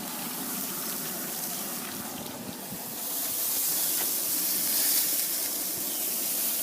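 Frying food sizzling: a steady hiss that grows louder about three seconds in.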